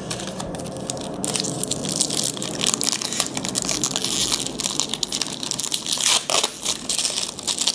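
A plastic wrapper of a trading card pack crinkling and tearing as it is opened by hand. There is a dense run of sharp crackles that starts about a second in.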